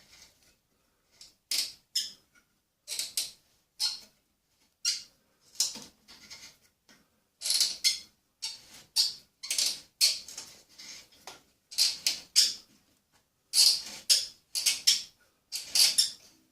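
A hand tap cutting M8 x 1.25 threads into a table saw's cast iron, turned in short strokes: a series of short, high squeaks, one or two a second, bunching closer together near the end.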